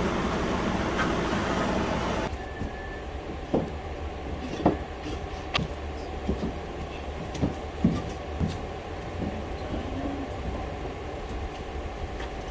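Steady background noise that drops off abruptly about two seconds in, followed by a scattering of small clicks and knocks as computer-case parts and hardware are handled.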